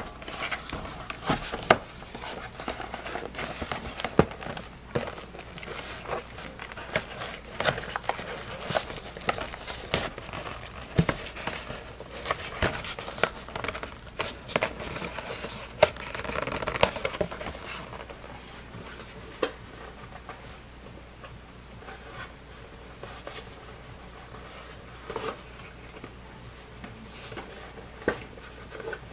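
A cardboard toy box with a clear plastic window being handled and turned over: crinkling, rubbing and sharp taps and clicks, busy for about the first two-thirds and then only a few scattered clicks.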